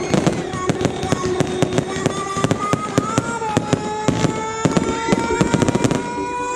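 Fireworks display going off in a rapid, continuous string of bangs and crackles, with sustained tones running underneath.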